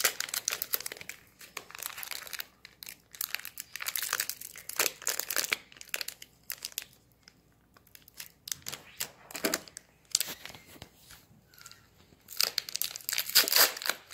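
Foil Pokémon booster pack wrapper being crinkled and torn open by hand, in irregular crackling bursts, with a quiet pause midway and a louder stretch of crinkling near the end as the wrapper is pulled apart.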